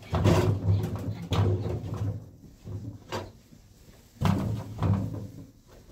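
Chunks of firewood knocking and scraping against a sheet-metal barrel stove as they are pushed into its firebox: about half a dozen dull knocks and thuds, dying away near the end.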